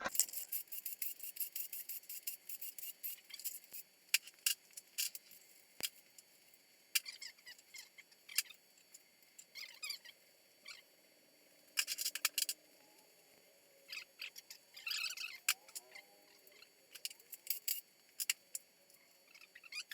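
Light metallic clicks, ticks and short squeaks from hand tools and loose parts being handled during an engine teardown, with bursts of rapid clicking.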